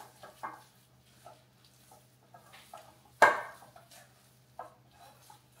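Metal spoon stirring a thick cheese filling in a glass mixing bowl: soft scrapes and light taps, with one sharp clink of the spoon against the bowl about three seconds in.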